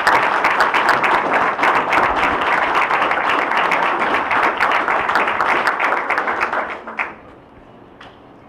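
Audience applauding: dense, steady clapping that dies away about seven seconds in, ending with a single last clap.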